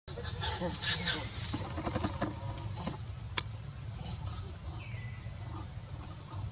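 Leaves and branches rustling and crackling as monkeys move through a tree, busiest in the first three seconds, with one sharp click about three and a half seconds in.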